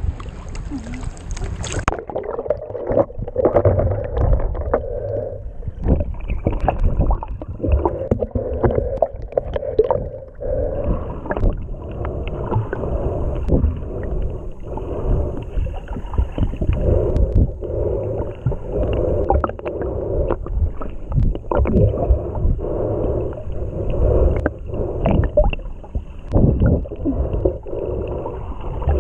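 Muffled underwater rumble and sloshing of sea water picked up by an action camera held just below the surface, with many small clicks and knocks; the sound turns dull about two seconds in as the camera goes under.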